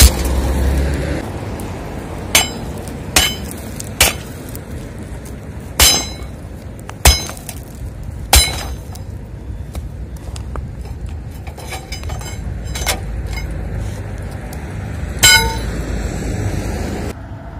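Sledgehammer blows on a rebar-reinforced concrete slab: about seven heavy strikes at uneven intervals of a second or two, then two more after a pause, with smaller knocks and clinks of concrete between. A few strikes ring briefly off the steel. The blows are partly deadened by the soft earth under the slab.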